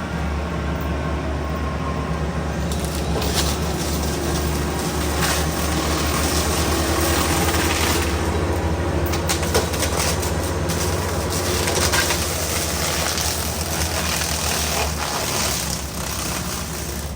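Yanmar ViO55 excavator's diesel engine running under load, driving a FEMAC T9 hydraulic mulcher head, with repeated cracking and crunching as the head chews through undergrowth. The level drops a little near the end.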